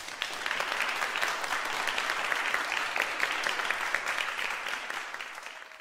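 Audience applauding: a crowd's dense clapping that fades away near the end.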